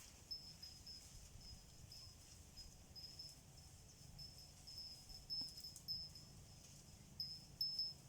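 Insects chirping in a faint, high, pulsing trill that keeps repeating, with a low rumble underneath and a few soft knocks in the second half.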